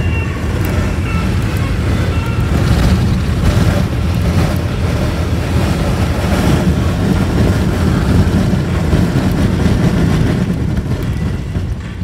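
Steady low rumble of a car driving on a wet road, with wind noise, heard from inside the cabin; a few brief louder swells of hiss ride over it.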